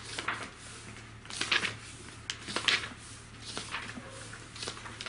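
Paper rustling and book pages being handled, in about five short bursts roughly a second apart, over a steady low electrical hum.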